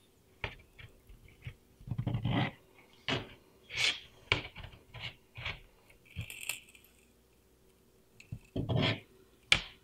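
Sulcata tortoise eating and moving about on a hard floor. It makes irregular crunches, clicks and scrapes at uneven gaps, from its jaws, claws and shell.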